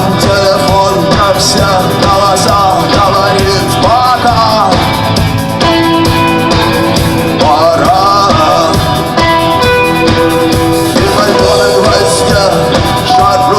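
Rock music: a band with guitar, and a singing voice whose pitch bends across held notes.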